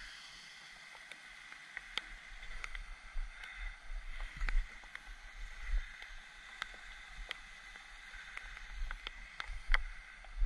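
Low bumps and light clicks of footsteps and camera handling over a faint steady outdoor hiss, with a hooked bass splashing briefly at the surface near the start.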